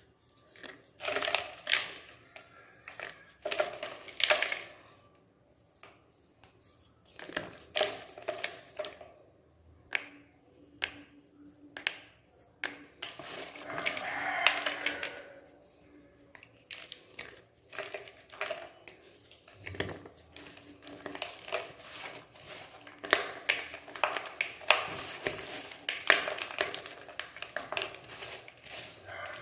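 Fresh thin slabs of gym chalk crushed by hand: bursts of sharp cracks and crunching crumbles, with short pauses between squeezes.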